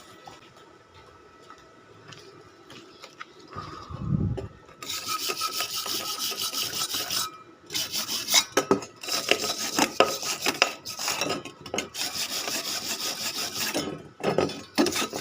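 Electric arc welding at about 85 amps: the arc crackles and sizzles steadily as a bead is run. It starts about a third of the way in after a low thump, and breaks off briefly twice before restarting.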